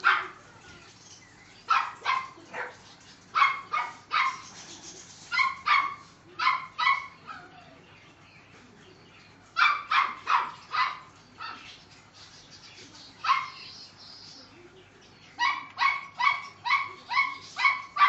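Puppies yapping: short, high-pitched barks in quick runs of two to six, with pauses of a second or more between the runs.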